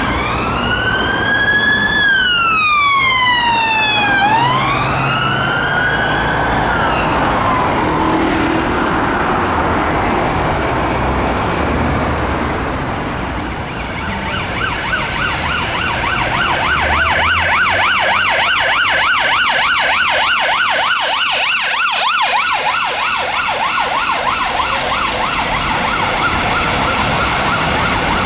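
Ambulance rapid response car's two-tone electronic siren: a slow wail rising and falling twice over the first several seconds, then after a quieter stretch of traffic noise it switches to a fast, rapidly warbling yelp as the car approaches through traffic with blue lights.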